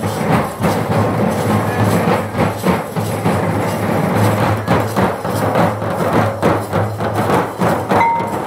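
A group of drummers beating large neck-slung drums with sticks in a continuous, driving rhythm. A brief steady high tone sounds over the drumming near the end.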